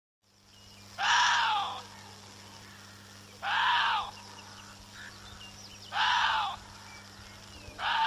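Chinese water deer barking: four short barks about two and a half seconds apart, each rising then falling in pitch.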